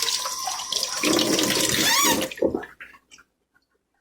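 Water running from a tap over soapy hands at a sink, getting louder about a second in, then stopping before three seconds in, leaving near silence.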